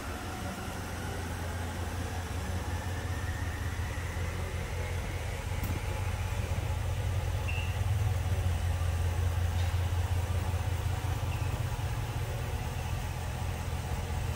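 Ram 1500 Rebel pickup's engine idling with a steady low rumble, growing a little louder about halfway through.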